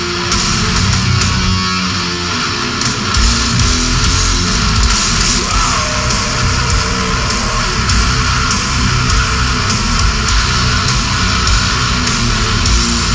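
A death metal band playing live: heavily distorted electric guitars, bass and drums. About three seconds in the drums and bass come in heavier and fuller, and the band keeps up a dense, fast drumming pattern to the end.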